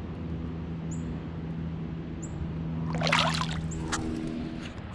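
Water splashing and sloshing, loudest in a short burst about three seconds in, over a steady low hum and a few short high chirps.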